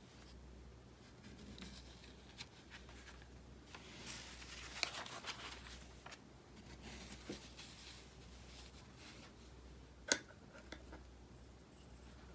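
Faint rustling and scraping as a sheet of ink-painted paper is handled and slid around on a cloth underlay, with a cluster of small clicks about four to five seconds in and one sharp tap about ten seconds in.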